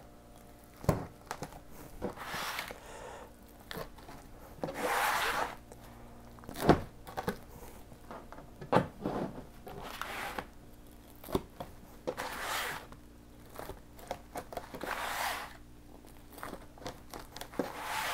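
Large chef's knife sawing through a baked pizza's thick crust on a paper liner and cardboard: about six crunchy rasps of a second or so each, with a few sharp knocks as the blade strikes the board.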